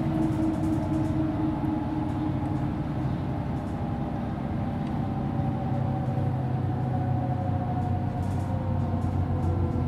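Mercedes-Benz Citaro city bus driving along, its diesel engine running under way with tyre and road noise. It is a steady drone, and the engine tones shift slowly in pitch as it goes.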